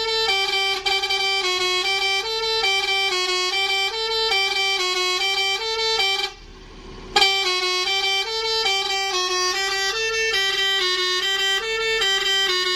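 A bus's telolet musical air horns, driven by a Basuri module, playing a repeating melody of quick notes that step up and down. The tune breaks off for about a second near the middle, then starts over.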